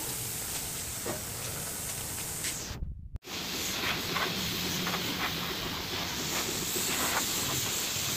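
Gravity-feed paint spray gun hissing steadily with compressed air as it sprays paint. The hiss cuts out for a moment about three seconds in, then carries on.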